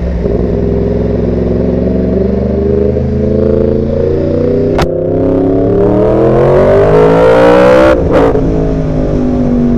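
Yamaha R1 crossplane inline-four sportbike engine under hard acceleration, its note climbing steadily to high revs. There is a sharp click about five seconds in. Just after eight seconds an upshift drops the pitch, and the engine pulls again.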